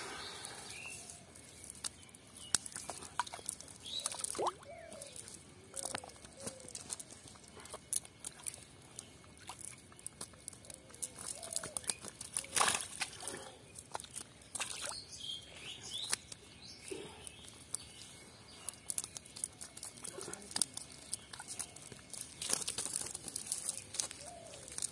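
Live fish flapping and slapping against wet mud inside a cast net, with the nylon mesh rustling as it is handled: irregular wet slaps and crackles throughout.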